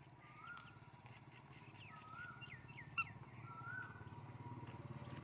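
Birds chirping, a few short whistled calls and quick falling chirps, with one sharp chirp about three seconds in. Under them a low engine hum of a passing motor vehicle grows louder toward the end.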